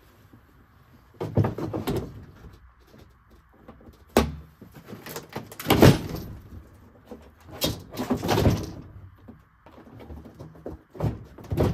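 Heavy lithium golf cart battery being worked down into a tight battery compartment: a series of scrapes and thumps as its case rubs and knocks against the cart's plastic tray. The fit is snug, with the battery's flange catching under the plastic edge.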